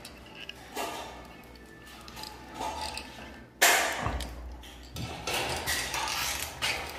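Aviation tin snips cutting and bending a galvanized steel ceiling hanger: sharp metallic snips and clinks, the loudest about three and a half seconds in.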